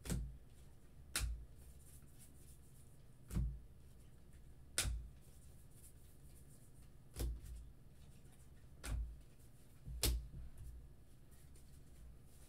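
Stack of 2021 Bowman baseball cards being flipped through by hand, one card at a time: about seven short clicks at irregular intervals, each with a dull knock.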